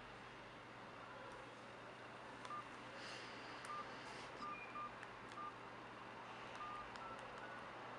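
Keypad beeps of a C102 Winnie the Pooh cartoon flip phone: several short, faint tones at an irregular pace as its keys are pressed, with soft button clicks.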